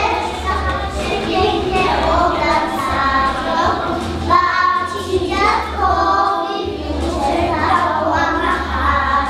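A children's song: many young children's voices singing together over a backing track with a steady bass.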